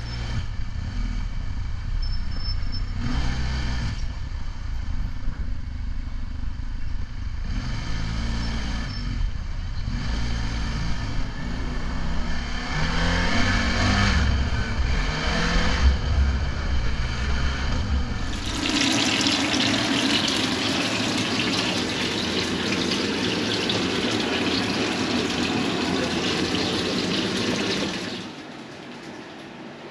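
TGB Blade 600 ATV's single-cylinder engine running under way, its pitch rising and falling as it speeds up and slows, with wind on the microphone. About two-thirds of the way in the engine sound gives way to a steady hiss that cuts off shortly before the end.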